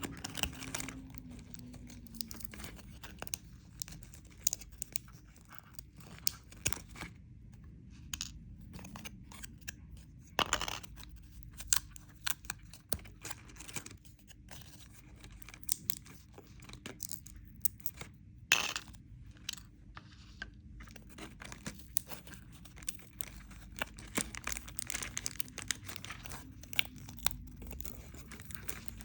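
Candy wrapper packaging crinkling and tearing in scattered crackles, with a couple of louder snaps.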